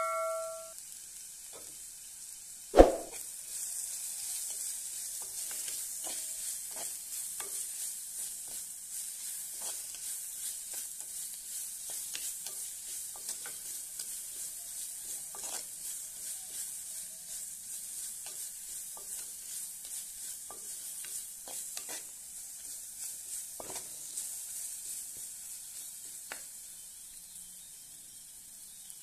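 Onions, curry leaves, pandan leaf, green chillies and spices frying in hot oil in a clay pot, sizzling steadily, while a wooden spoon stirs them with many small knocks and scrapes against the pot. The sizzling starts about three seconds in, right after one sharp knock.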